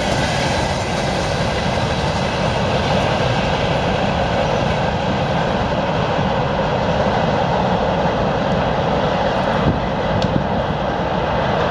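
2TE116 twin-section diesel locomotive running, its 16-cylinder diesel engines giving a steady, loud, dense drone.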